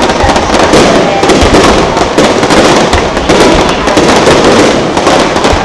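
Aerial fireworks shells bursting in rapid succession, their bangs and crackling overlapping into a loud, unbroken barrage.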